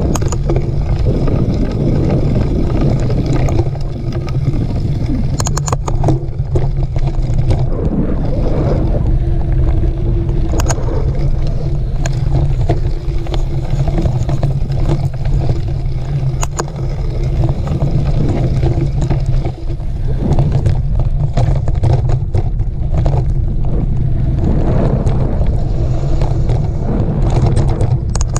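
Steady low rumble of wind and motion noise on the microphone of a camera riding along on a mountain bike over a dirt trail, with scattered short clicks and rattles from bumps.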